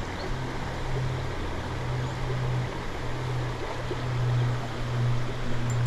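Creek water rushing steadily over a shallow riffle, with a low rumble underneath that swells and fades.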